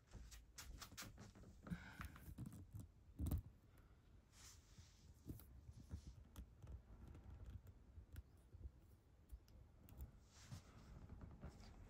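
Faint scattered clicks and light knocks, with one louder knock about three seconds in, over quiet room tone.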